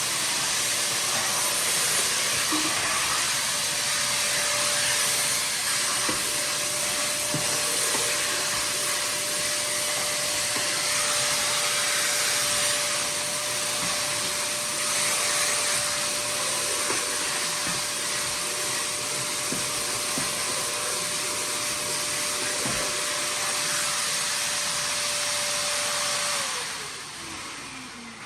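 Vacuum cleaner running steadily with a motor whine, switched off near the end so the whine falls in pitch as the motor winds down.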